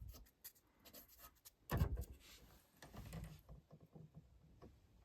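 Faint handling noises from an opened breaker panel: scattered clicks and light knocks, the loudest about two seconds in, as breakers and their wiring are moved and checked for rubbing.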